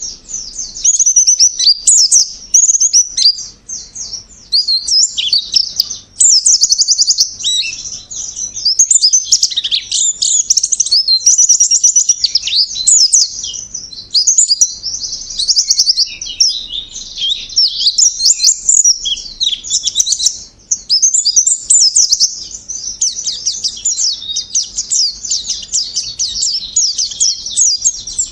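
White-eye (pleci) song: long runs of rapid, high-pitched twittering trills with only brief breaks between phrases.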